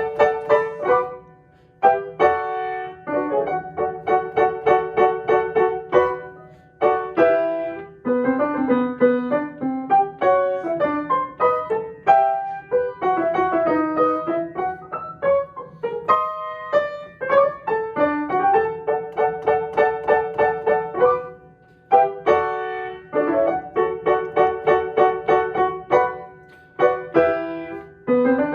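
Piano playing one part of a holiday duet piece, in quick repeated chords and short phrases, with brief breaks between phrases about a second and a half, six and a half, and twenty-one seconds in.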